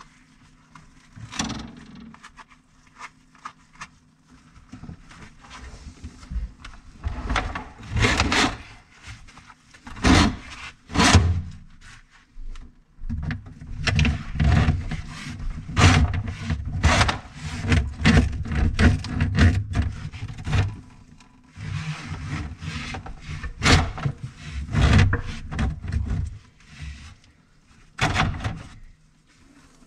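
Irregular knocks, rubbing and scraping as plastic drain pipes and fittings under a kitchen sink are handled around a garbage disposal, with a low rumble underneath through much of the middle.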